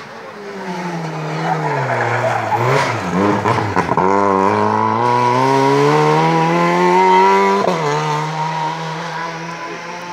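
Rally car engine racing through a bend: the note falls as the car slows, turns rough for a moment, then climbs steadily under hard acceleration. It drops sharply at a gear change about three quarters of the way through, then fades as the car moves off.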